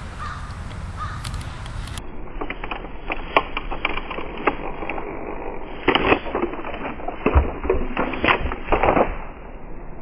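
A Lego Mindstorms NXT crane tipping over onto the ground: plastic parts clicking and knocking, with louder clatters from about six seconds in and a dull thump a little after seven.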